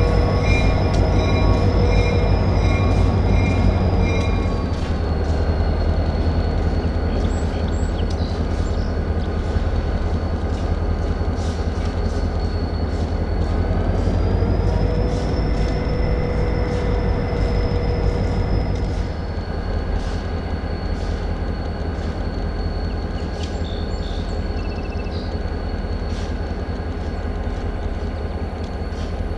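Diesel freight locomotive running as it creeps forward at low speed: a steady low engine rumble with a high whine that drops in pitch about five seconds in and climbs back up around fourteen seconds. The rumble eases slightly about two-thirds of the way through.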